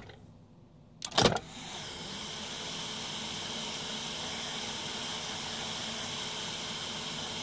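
A few sharp clicks about a second in, followed by a steady mechanical hum with a hiss.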